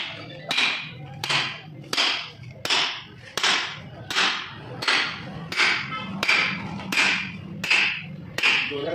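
Sharp strikes at an even pace, about three every two seconds, over a steady low hum.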